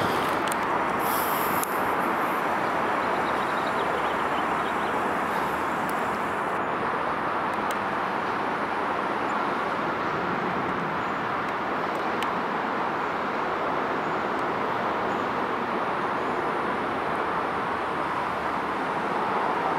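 Steady background traffic noise, an even hum that holds without change and with no crossing bell ringing.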